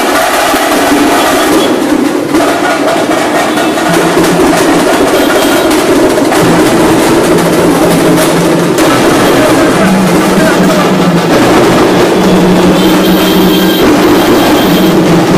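Loud festival procession music: drums beating steadily, with held notes coming and going over it, and a crowd's voices underneath.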